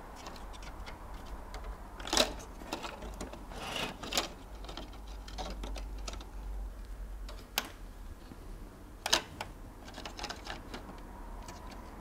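Small clicks and taps from fingers pressing flex ribbon cable connectors onto the SGI Octane Personal Video circuit board, irregular, with about four sharper clicks among them.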